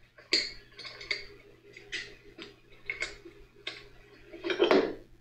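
Sharp metallic clicks and clinks, about one a second, as a gear puller's forcing screw is turned with a wrench on a tractor's front differential carrier. A longer, louder metal clatter comes near the end.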